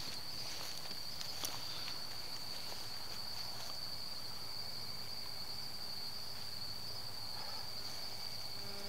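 Crickets trilling steadily at night: one continuous high-pitched chirr that doesn't break, with a faint click about a second and a half in.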